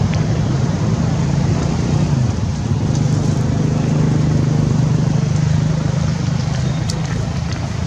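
A motor engine running steadily: a low, even hum that shifts slightly in pitch a little over two seconds in.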